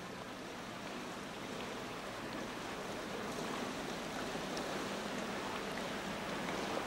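A motorboat under way: a steady wash of water, with a faint low engine hum under it.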